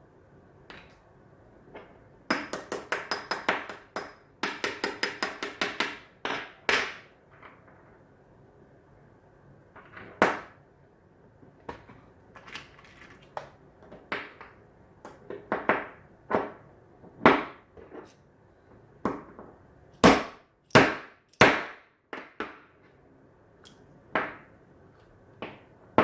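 Hammer tapping and knocking on a hand reloading die while a .308 cartridge is reloaded without a press. First come two quick runs of rapid light metallic taps, then slower single knocks about a second apart, the hardest three close together past the middle.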